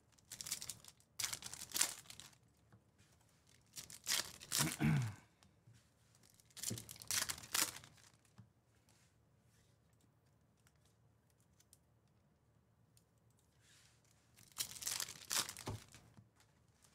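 Foil trading-card pack wrappers crinkling and tearing as packs are ripped open and the cards are pulled out. The sound comes in four short bursts, with a quiet stretch of several seconds in the middle.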